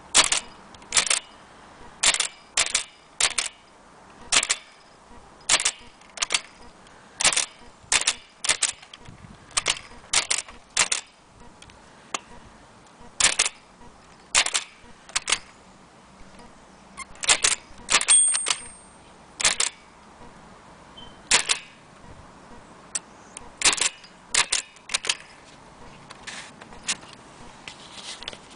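Keystrokes on an aluminium Blickensderfer Featherweight typewheel typewriter: sharp clicks at an uneven typing pace, with brief pauses, and a short high ring about eighteen seconds in. The keystrokes grow fainter near the end.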